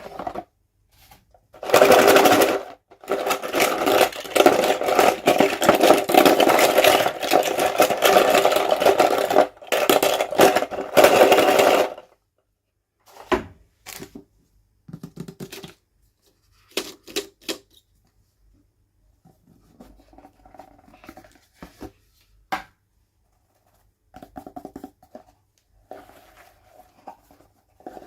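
Toy packaging being handled and opened: dense crinkling and crackling for about ten seconds, then scattered clicks and taps as pieces are handled.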